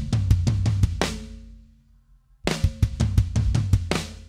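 A recorded drum kit played back through a live mixing setup, its toms running through a compressor plugin: a fast pattern of kick, snare and cymbal hits that ends about a second in. The last drums ring out with low tones and fade almost to silence. The pattern starts again about two and a half seconds in and stops just before the end.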